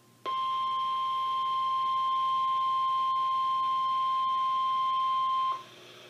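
NOAA Weather Radio warning alarm tone (the 1050 Hz tone) sounding through weather radio receivers' speakers: one steady, unbroken tone lasting about five seconds, then cutting off suddenly. It signals that a warning is about to be broadcast.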